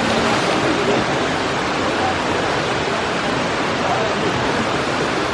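Steady rush of a waterfall, with faint voices behind it.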